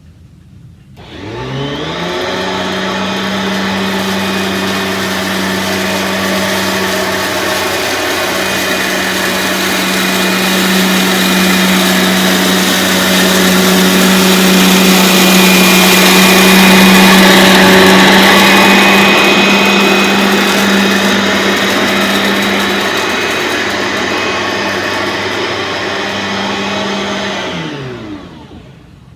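Aeros U162C upright vacuum cleaner switching on about a second in, its motor spinning up to a steady hum with a whine above it, running while it sucks up spilled rice and ground coffee, louder in the middle, then winding down in pitch as it is switched off near the end.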